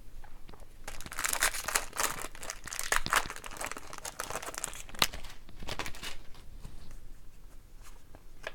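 A foil trading-card pack wrapper crinkling and tearing as it is handled, with a few seconds of dense crackle and a sharp snap about five seconds in.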